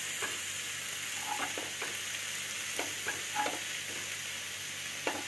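Steady sizzle of chicken skewers and paneer frying in a pan on a gas stove. Several short scrapes of a metal spatula against the rice pan and bowl are scattered through it as fried rice is spooned out.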